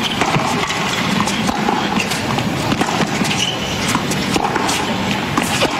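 Tennis ball bouncing and being struck on a hard court: a few sharp, scattered thuds over a steady stadium crowd murmur.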